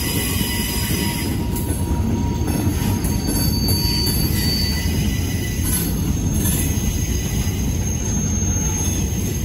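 Freight train of boxcars and covered hopper cars rolling past: a steady rumble of steel wheels on rail, with thin high wheel squeals coming and going.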